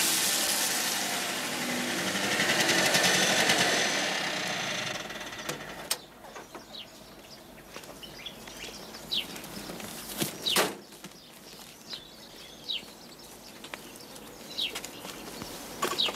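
Small delivery pickup truck's engine running as it pulls up, then dying away about five seconds in. After that, birds chirping now and then, with a few clicks and a loud thump about ten seconds in.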